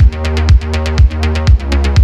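Electronic dance music with a steady kick drum about twice a second, off-beat hi-hats and a sustained bass line.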